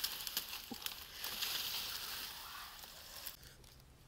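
Dry leaf litter and grass rustling and crackling under quick movement, full of small snapping crackles. It stops abruptly a little over three seconds in.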